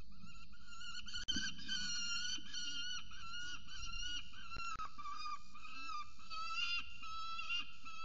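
Peregrine falcon calling: a continuous run of high, wavering whining notes that rise and fall in pitch, with two brief clicks.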